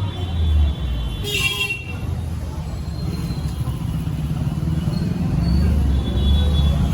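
Street traffic with a steady low engine rumble that swells near the end as a vehicle passes close, and one short horn honk about a second and a half in.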